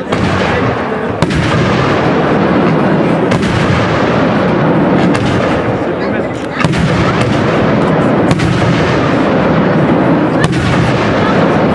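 Aerial firework shells bursting: about seven sharp bangs, one to two seconds apart, over a steady rumble of noise.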